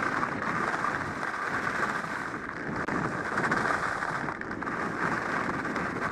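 Volkl Kink skis running over firm, chunky snow: a steady scraping rush of the skis on the hard surface.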